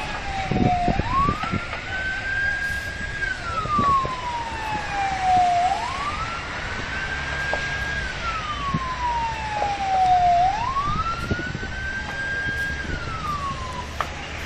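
Fire engine siren wailing in a slow cycle, three times: each time it rises quickly, holds its top pitch, then slides down over a couple of seconds. A low rumble runs underneath, with a few thumps about a second in.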